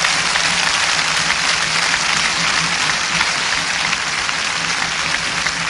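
Congregation applauding in praise: steady, dense clapping with a low steady hum underneath.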